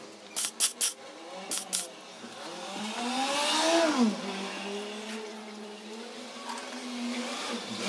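Turbocharged car engine idling, blipped once about three seconds in: its pitch rises with a building hiss, then drops sharply back to a steady idle. A few sharp clicks sound in the first two seconds.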